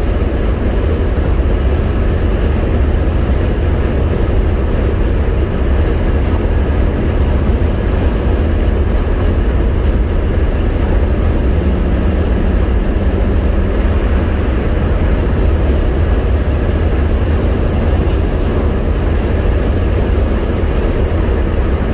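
1987 Chevrolet Caprice cruising at highway speed: a steady low rumble of engine, exhaust and tyre noise, heard from inside the cabin.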